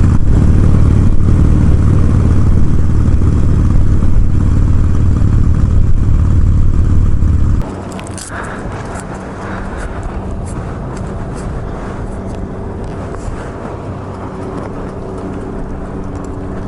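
Harley-Davidson Sportster 883's air-cooled V-twin engine running, a loud, steady low rumble. About seven and a half seconds in it drops abruptly to a much quieter, steady engine sound with a few scattered clicks.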